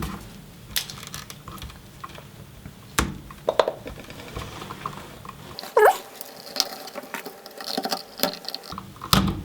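Irregular small clicks, rustles and scrapes of hands working electrical cable, pulling the cut outer sheathing off Romex wires, with a brief squeak about six seconds in.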